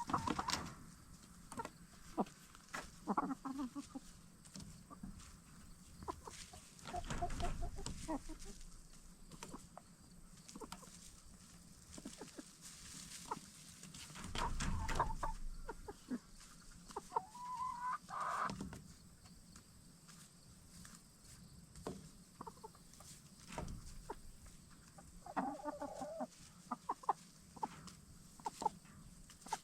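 Black Star and Bielefelder hens clucking softly at intervals, with scattered sharp taps and rustling as they peck and scratch, and a couple of louder rustling bursts.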